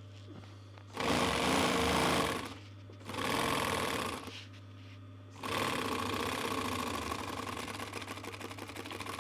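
Industrial sewing machine stitching upholstery seat-cover panels in three runs: a short one about a second in, another about three seconds in, and a longer run starting a little past halfway, all over a steady low hum.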